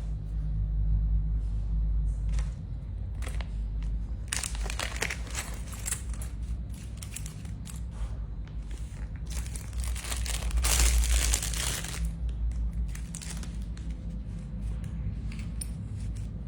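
Crinkling, rustling handling noise close to the microphone, loudest in two spells about four seconds in and about ten seconds in, over a steady low hum.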